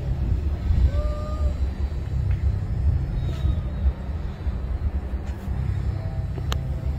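Low, uneven outdoor rumble on the microphone, with a brief faint tone about a second in and a sharp click near the end.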